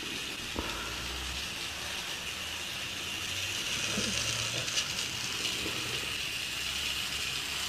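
Vintage 1970s Tomix N-gauge model train running at its top speed, its small motor and wheels giving a steady mechanical whir with a few faint clicks. The old set is really loud.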